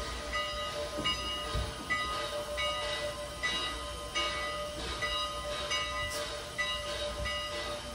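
Steam locomotive No. 89 standing at the water tower while its tender is filled: a steady hiss with a rhythmic chuff about once a second.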